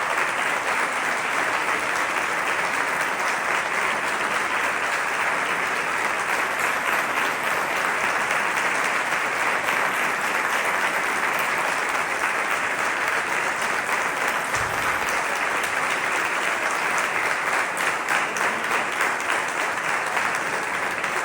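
Audience applauding steadily after an orchestral performance, the clapping growing more uneven, with single claps standing out, near the end.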